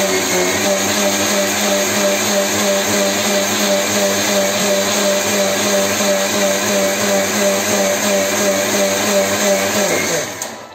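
Electric mixer-grinder motor running steadily at speed, blending a banana milkshake in its steel jar. Near the end it is switched off and the motor spins down, falling in pitch.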